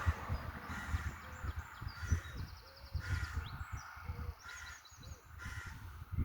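Crows calling, with short caws about a second in, near three seconds and twice near the end. Higher, thinner bird chirps and low thumps sound between them.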